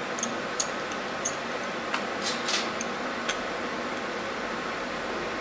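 Light, scattered clicks and ticks of small torch parts being handled while a new nozzle is fitted to a CNC plasma cutter's torch, over a steady background hiss.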